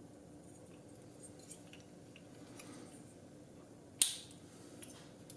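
Small hard parts being handled: faint light clicks over a low steady hum, then one sharp snap about four seconds in.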